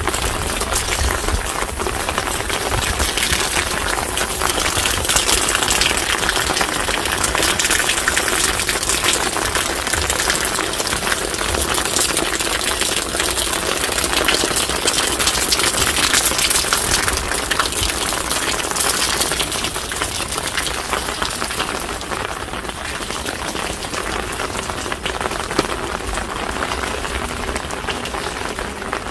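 Steady rain falling: a dense, even hiss of many small drops, with a low rumble underneath. It eases slightly after about twenty seconds.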